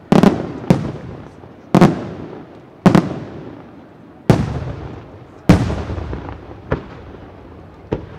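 Aerial firework shells bursting overhead: six sharp, loud bangs a little over a second apart, each trailing off in a long rolling echo, with a few smaller reports between them.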